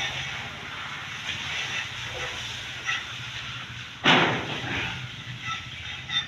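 Engine-driven construction machinery running steadily with a low hum and hiss, with a sudden loud rush of noise about four seconds in that fades over about a second.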